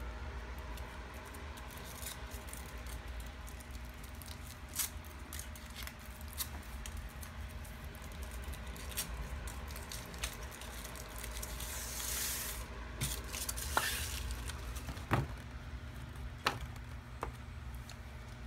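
Crinkling and rustling of plastic packaging as a surprise toy egg is handled and opened, with scattered sharp clicks and taps and a brief hiss about two-thirds of the way in. A steady low hum lies underneath.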